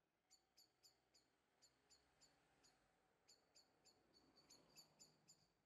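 Near silence: faint room tone with a run of quick, high chirps, irregular, several a second.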